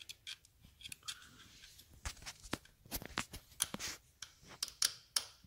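Irregular light clicks and scrapes of hand work with a small slotted screw and screwdriver, as the screw is fed by feel into a cramped spot on an Amal Mk 2 carburetor.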